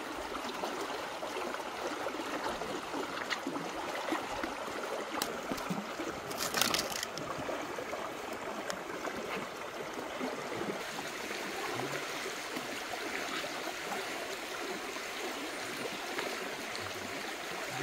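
Water flowing steadily with a soft trickling rush, with a few faint clicks and one brief louder noise about six and a half seconds in.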